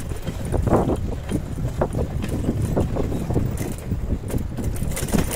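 Bicycle being ridden over rough paving: a steady rumble from the tyres, small scattered rattles from the bike, and wind on the microphone.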